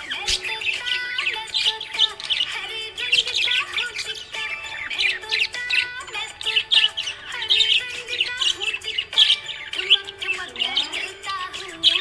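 Budgerigars chirping and warbling in a rapid, continuous chatter over background music.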